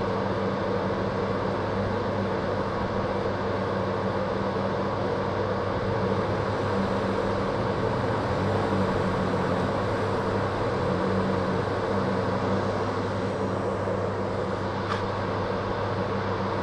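Vehicle engine running steadily at a slow crawl, a constant low drone with a steady hum of road and water noise.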